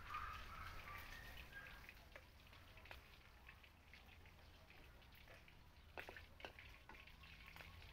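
Faint, scattered clicks and taps from cooking in a wok over a wood fire, with two sharper clicks about six seconds in, over a low steady background hum.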